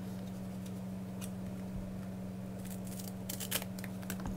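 Faint handling of a self-adhesive foam pad: a few small clicks and rustles, most of them about three seconds in, over a steady low hum.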